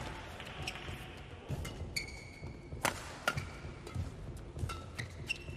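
Badminton rally: sharp cracks of rackets striking the shuttlecock, two of them loud and about half a second apart around three seconds in, with shoes squeaking briefly on the court mat and footfalls thudding.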